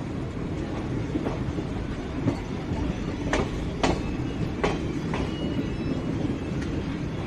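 Passenger train coaches running on the track, heard from an open coach doorway: a steady rumble of wheels on rails, with a handful of sharp clacks from the wheels on the track around the middle.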